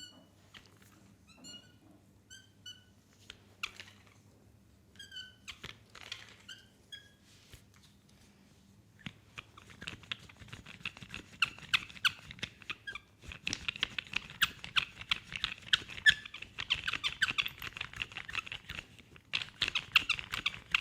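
Hands massaging an oiled leg. Several short squeaks of palm on skin come first. Then, from about nine seconds in, fast, dense rubbing and slapping strokes run to the end and are the loudest part.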